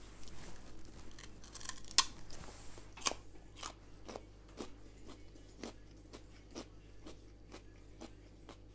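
Raw carrot being bitten, with loud crunchy snaps about two and three seconds in, then chewed with steady crunches about twice a second.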